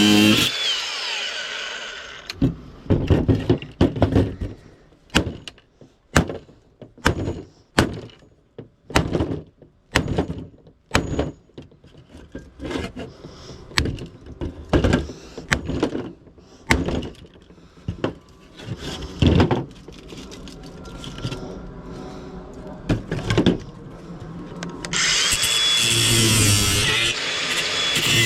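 Scrap being broken apart by hand with a hammer-type tool: a long run of sharp knocks, about two a second, then fewer and quieter ones. Music fades out at the start and comes back near the end.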